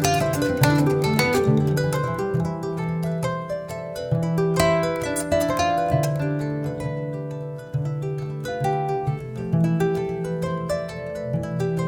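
Instrumental music with many quick plucked, harp-like notes over a repeating low bass figure, between sung verses of a song.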